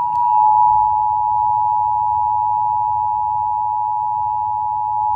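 Emergency Alert System two-tone attention signal broadcast over FM radio: a steady, loud, unbroken dual tone just under 1 kHz over a faint low hum. It signals that an emergency alert message, here a severe thunderstorm warning, is about to be read.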